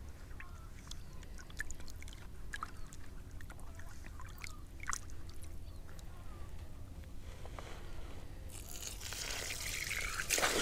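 Coarse feeder groundbait being stirred by hand in a bucket: faint scattered rustles and ticks, then a louder hissing rustle that builds over the last two seconds.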